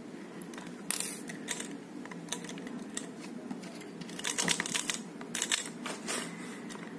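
Hands working the parts of a Keihin Sudco-replica motorcycle carburetor apart to get at the float: scattered light metallic clicks and clinks, busiest about four to five and a half seconds in.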